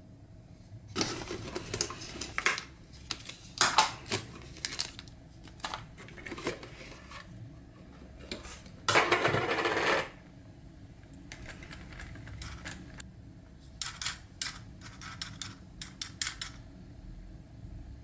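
Hard plastic toy packaging and a plastic bird cage being handled and opened by hand: irregular clicks, taps and crinkles, with a dense one-second scrape about nine seconds in.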